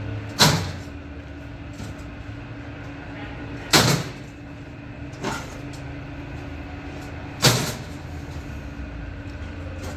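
Three loud, sharp bangs about three and a half seconds apart, with a softer knock between the last two, over a steady low hum like a running engine.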